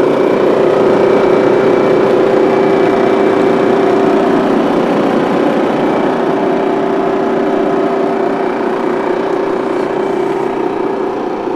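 2023 KAMAZ 54901 truck's 12-litre six-cylinder turbo diesel idling steadily and smoothly, heard close to the engine behind the cab, growing slightly fainter near the end.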